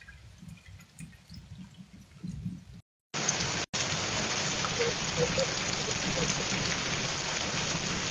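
Heavy rain falling, with scattered drips at first. About three seconds in, the sound cuts out briefly and comes back as a much louder, steady hiss of downpour.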